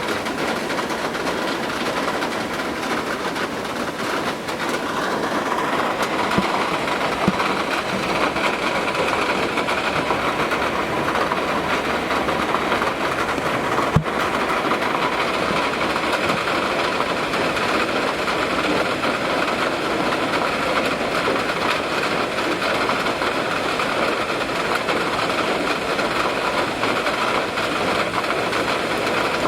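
Steady rain and wind making a dense, even hiss that grows a little louder a few seconds in, with a single sharp click about halfway through.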